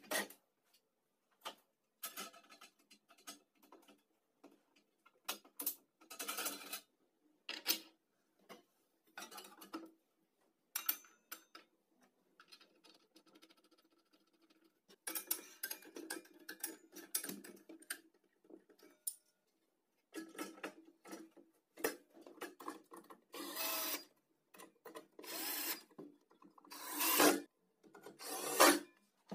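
Irregular clicks, knocks and scraping of plastic and metal circular-saw parts being handled and fitted: guard pieces set down, the blade and its flange nut put on the arbor. Several longer, louder scraping bursts come in the last third.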